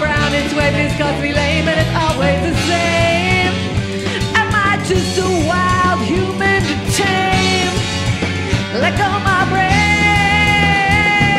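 Live rock band playing an instrumental passage: bass and drums under a lead line of held and sliding notes, ending on a long held note.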